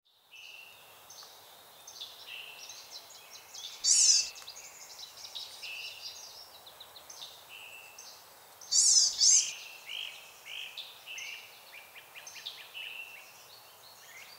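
Several wild birds singing and calling over one another, short whistled and sliding notes, with a louder rapid trill about four seconds in and again near nine seconds.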